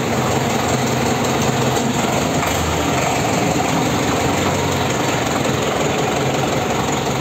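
Diesel farm tractor engine running steadily at low revs, heard from the driver's seat.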